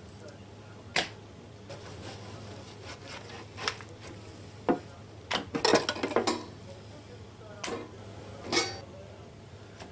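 Knife blade clicking and scraping against a metal baking sheet as partially frozen venison roast is sliced and strips are laid down: scattered sharp clicks, bunched together about five to six seconds in, over a steady low hum.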